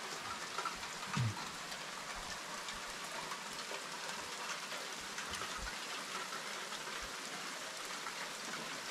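Steady rain falling, an even hiss, with one short low falling sound about a second in.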